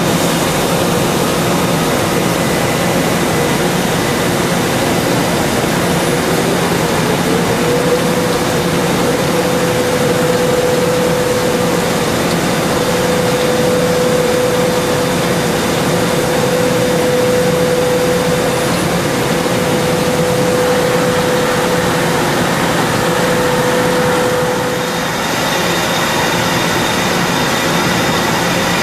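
Matsuura CUBLEX-42 multi-tasking CNC machine cutting a metal part under flood coolant: a steady rush of coolant spray and machining noise. A steady cutting tone rises in pitch about seven seconds in, holds, and stops about 25 seconds in.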